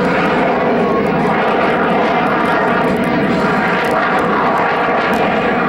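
CF-18 Hornet's twin General Electric F404 turbofan engines running loud and steady in flight.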